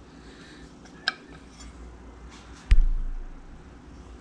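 Handling noise from a clutch spring compressor being seated on a 200-4R direct drum: a light click about a second in, then a single heavy thump a little past halfway that dies away over about a second.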